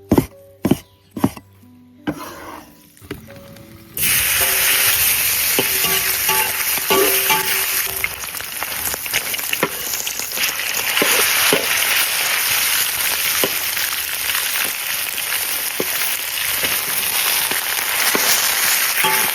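A few knife chops on a cutting board, then about four seconds in a sudden loud sizzle as sliced fatty and lean meat hits hot oil, frying steadily with the scrape and clatter of a spatula stirring it.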